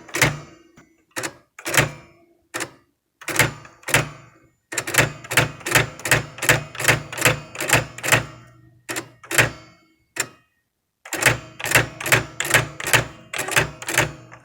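Nakajima WPT-150 electronic typewriter printing capital letters, each a sharp mechanical strike, in uneven runs of up to about four a second with short pauses between runs.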